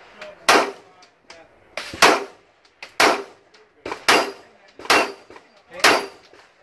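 Gunshots from a firearm being fired in steady succession at a multigun stage: six loud shots about a second apart, each ringing out briefly, with fainter sharp cracks between them.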